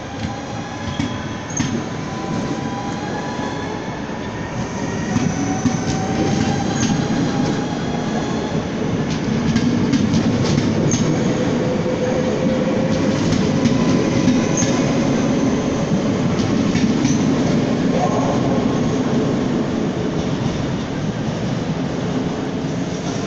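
Yellow NS double-deck electric passenger train running past along the platform: steady rumble of wheels on rail with a faint gliding motor whine, brief high wheel squeaks several times and a quick run of clicks over the rail joints midway.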